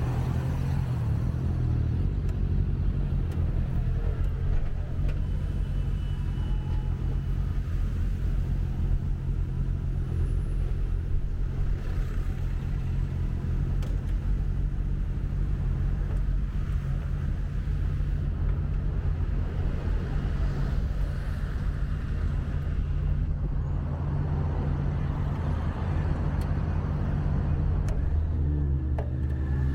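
A road vehicle's engine idling close by in city traffic: a steady low hum that holds throughout. Near the end its pitch rises as the vehicle accelerates.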